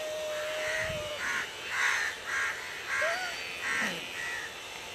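Crows cawing, a run of about seven harsh caws. For the first second the electric hair clippers hum steadily, then stop.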